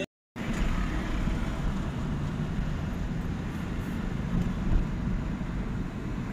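Steady road and engine rumble heard from inside a moving car in slow city traffic, starting after a brief dropout at the very start.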